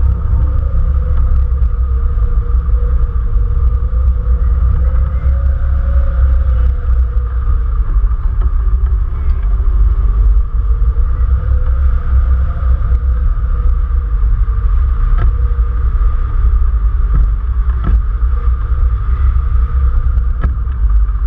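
Wind rushing over a wing-mounted camera's microphone on a hang glider in flight: a loud, steady rumble with a faint wavering whistle above it.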